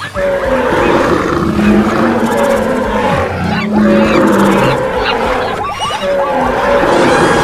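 Animal stampede sound effect: many running animals' hooves and feet making a dense, continuous din, with short animal calls and roars scattered through it.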